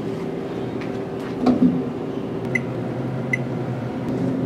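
Snack vending machine keypad beeping twice, about a second apart, as a two-digit selection is keyed in, over a steady low hum. A brief louder sound comes about a second and a half in.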